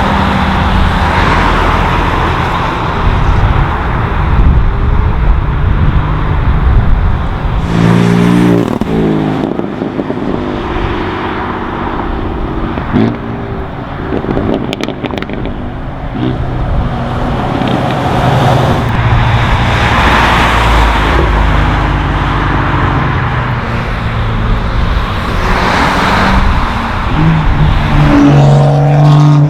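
Modified cars driving past one after another, their engines revving and shifting up through the gears. The exhaust note swells and fades with each pass, and there is one sharp crack about halfway through.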